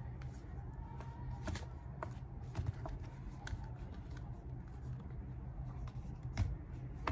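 Fingers handling a phone mounted in a Feiyu Vlog Pocket 2 gimbal, adjusting its clamp and arm to balance it: light plastic clicks and rubbing, with a louder knock near the end.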